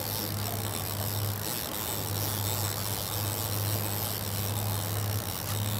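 Center-console boat's engine humming steadily while under way, under a constant rush of wind and churning wake water.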